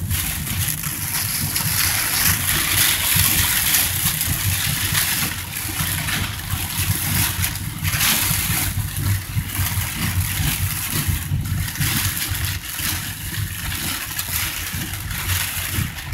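Heavy rain on a moving car heard from inside the cabin: a steady hiss of rain on the car and tyres on the wet road over the low rumble of engine and road noise, with a few brief louder swells.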